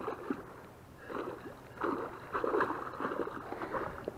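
A hooked pike thrashing and splashing at the surface beside an inflatable boat: irregular splashes that come thickest over the last three seconds.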